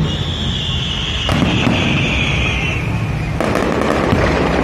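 Aerial fireworks going off overhead. A high whistle falls slightly in pitch over the first three seconds, and dense crackling bursts break out about a second in and again near the end.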